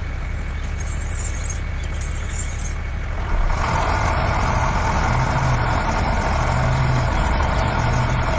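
Steady vehicle engine drone, growing louder about three seconds in.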